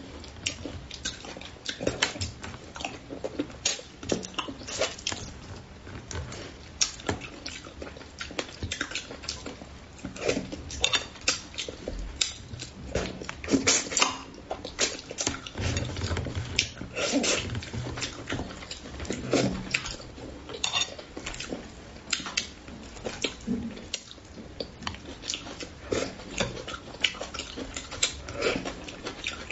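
Close-miked eating of spicy braised crucian carp: wet chewing, lip smacking and sucking at the fish, a continuous run of short clicks and smacks, with occasional clinks of utensils against the dish.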